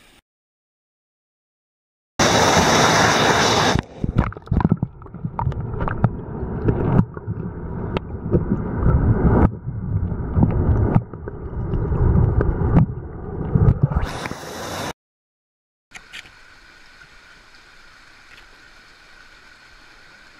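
Water sloshing and gurgling close around an action camera held underwater while a trout is held in the current for release, beginning with a loud rush of water and broken by irregular splashes. After a short silence, a small mountain stream runs steadily.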